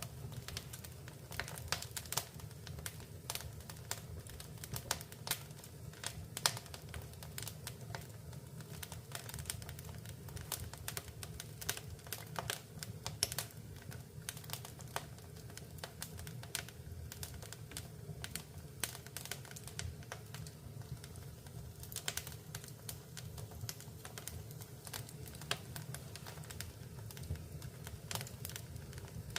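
Fire burning in a fireplace, crackling and popping with irregular sharp snaps over a low, steady rumble.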